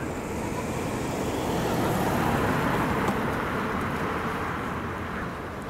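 A minivan driving past close by: its tyre and engine noise swells to a peak about two seconds in, then fades as it pulls away.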